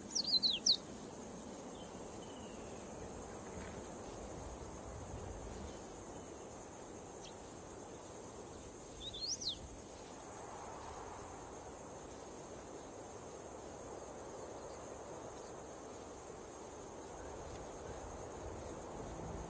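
Steady high-pitched drone of insects in dry bush. A bird's few quick chirps cut through it right at the start and again about nine seconds in.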